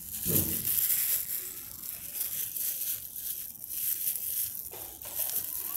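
Thin polythene bag crinkling and crackling irregularly as it is wrapped tightly by hand.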